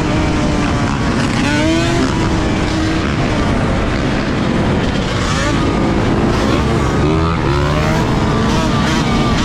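Motor vehicle engine running, its pitch rising and falling as it is revved.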